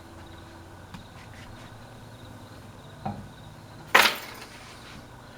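Hampton Bay Gazebo II ceiling fan running with a steady low hum, broken by a small knock about three seconds in and a loud, sharp knock about a second later.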